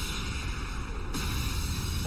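Steady rushing noise with a low rumble underneath, the sound effects of destruction in an anime clip.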